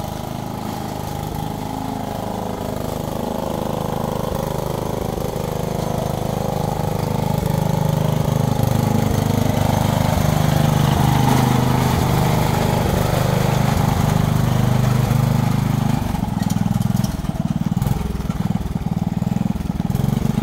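Riding lawnmower engine running steadily and growing louder over the first ten seconds or so as it approaches, then turning uneven for a moment near the end.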